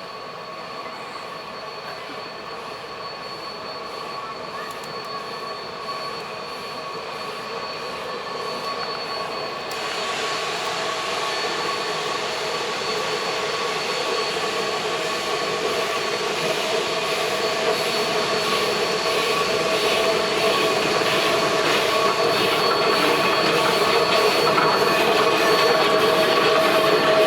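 Geared steam logging locomotives approaching, growing steadily louder, with a steady high-pitched squeal from the wheels on the rails. About ten seconds in, a broader hissing rush joins it.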